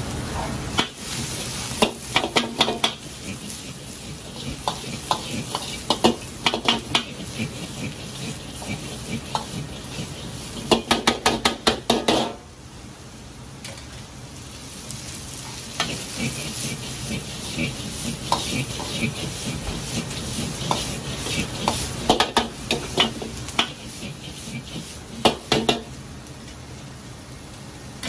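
Sliced onions sizzling in a black iron wok over a running gas wok burner, with a metal ladle clanking and scraping against the wok in quick clusters as they are stirred. The sizzle drops suddenly about twelve seconds in, then builds again with more ladle strikes.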